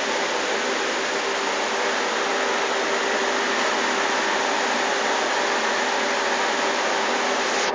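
Steady, even whooshing noise of a running motor-driven blower or similar machine, with a constant hum tone underneath.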